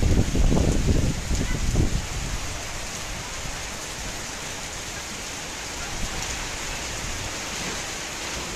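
Heavy tropical-storm rain falling steadily as an even hiss, with wind buffeting the microphone in gusts for the first two seconds.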